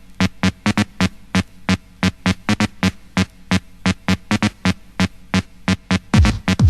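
Electronic dance music: a drum-machine pattern of sharp, clicky hits in an uneven rhythm, with deep kick drums that drop in pitch coming in about six seconds in.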